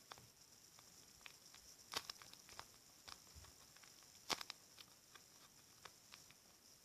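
Faint scattered light clicks and taps of handling noise, with two louder taps about two and four seconds in.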